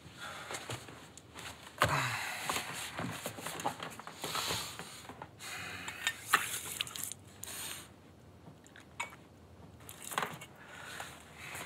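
Heavy bedcovers rustling near the start, then water poured from a brass ewer splashing over hands into a metal basin as the hands rub together, in irregular bursts with a few sharp clinks.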